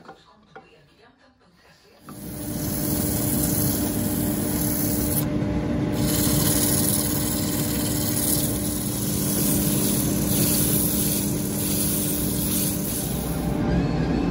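Wood lathe spinning a segmented wooden bowl while it is sanded, abrasive held against the turning surface: a steady rushing hiss over a low motor hum, starting suddenly about two seconds in.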